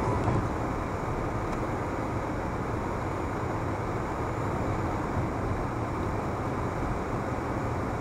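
Steady road noise of a car being driven along an open road: a constant drone of tyres and engine, heard from inside the cabin through a dashcam's microphone.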